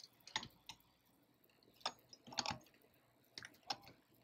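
Faint, irregular clicks and taps as an RV keyless-entry door lock's housing is pressed and shifted into place against the RV door, some single and some in quick pairs.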